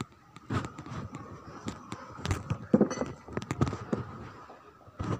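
Irregular knocks and clicks, loudest about three seconds in.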